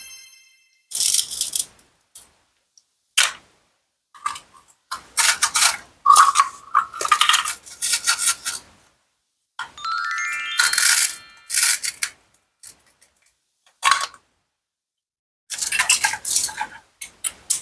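Toy knife cutting through plastic and wooden toy fruit: a string of short, crisp cutting and separating strokes with pauses between them. A rising, stepped cartoon sound effect plays about ten seconds in.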